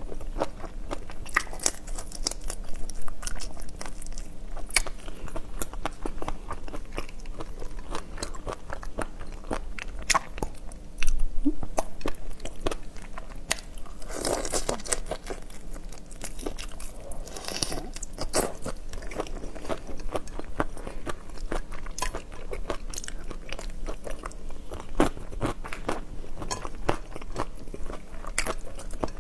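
Close-miked biting and chewing of raw prawns, the shells cracking and crunching in a steady run of sharp clicks, with the loudest crack about eleven seconds in.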